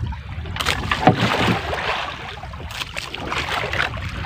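Water splashing and sloshing against the hull of a small wooden boat, with a few sharp knocks, as a handline is worked over the side.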